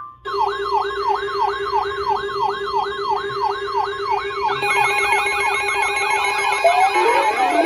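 Electronic sirens yelping loudly, the pitch sweeping up and down about three times a second over a steady tone. A second, faster-yelping siren joins about halfway through, and a slower sweeping tone comes in near the end.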